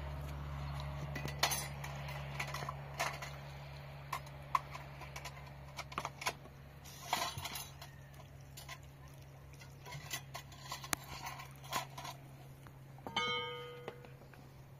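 Metal cookware and utensils being handled, with scattered clinks and knocks and one ringing metallic clang about thirteen seconds in, under a low hum that fades away.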